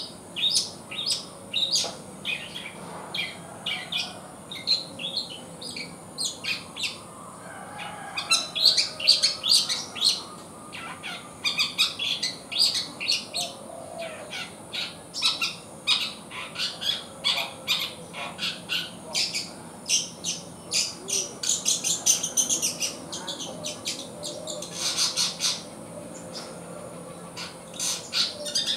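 Young long-tailed shrike (cendet), about three months old, singing a rambling, continuous run of short, high chirps and twitters. This is a juvenile's practice song while it is still learning its notes. The song grows denser and louder about a third of the way in.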